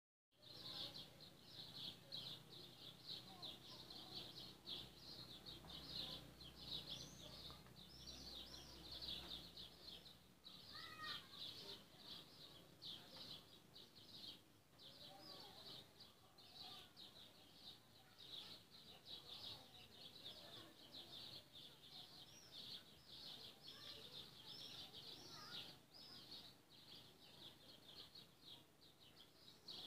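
Faint, continuous chorus of small songbirds chirping and twittering, with a few lower whistled notes about eleven seconds in.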